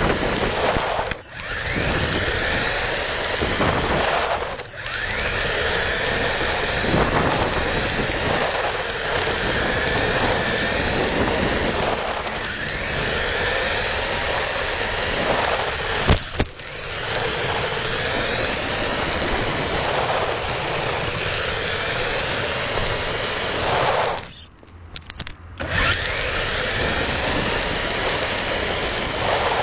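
Radio-controlled car's motor whining, rising in pitch again and again as it accelerates, over a rough rumble from its wheels on cracked paving. The sound drops out briefly a few times when the throttle is let off, the longest pause coming a little before the end.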